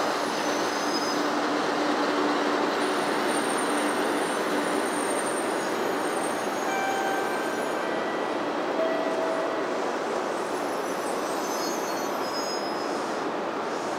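Shinkansen bullet train pulling in along the platform and slowing to a stop: a steady rushing rumble of wheels and running gear, with thin squealing tones coming and going over it, easing slightly toward the end.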